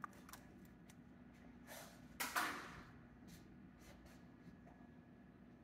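Mostly quiet room tone, with a few faint clicks near the start and a short breathy rush of noise about two seconds in.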